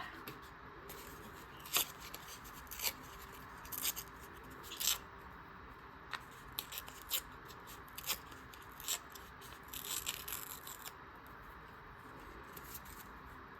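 Scissors snipping paper in a string of short, irregular cuts, about one or two a second, over a faint steady room hum.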